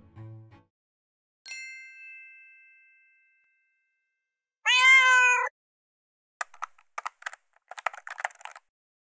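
A chime rings once and fades. Then a cat gives a single meow, the loudest sound, near the middle. A quick run of sharp clicks follows for about two seconds.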